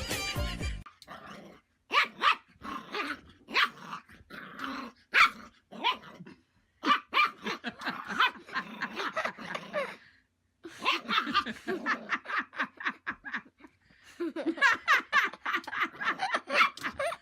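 A dog barking and growling in quick, short yips, in runs with brief pauses between them. Music plays at the very start and cuts off under a second in.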